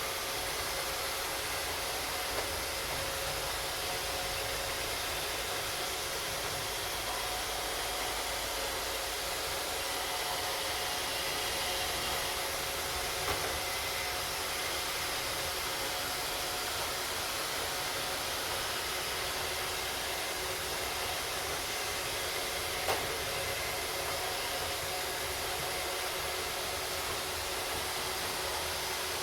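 Three Roomba robot vacuums (a Model 561, a Model 620 and an older Roomba Pro) running together: a steady whir of their vacuum motors and brushes, with a few faint steady tones. A few light knocks come about two, thirteen and twenty-three seconds in.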